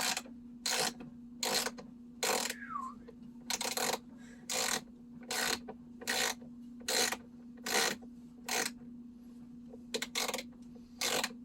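Ratchet wrench turning a bolt out in short, even strokes, roughly one a second, with a brief pause near the end. A steady low hum runs under it.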